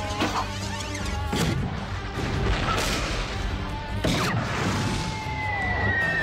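Cartoon battle sound effects over action music: a run of sudden crashing blasts, roughly one every second or so, some trailing a falling whistle. A long, slowly falling whine comes in near the end.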